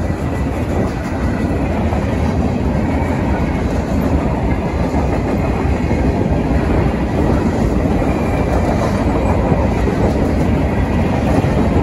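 A long freight train's cars, covered hoppers and gondolas, rolling past on the rails in a steady, loud rumble of wheels on track.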